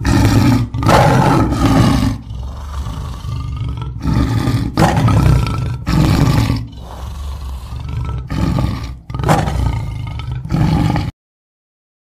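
Loud animal roars and growls in repeated bursts about a second long, with quieter growling between them, cutting off abruptly about eleven seconds in.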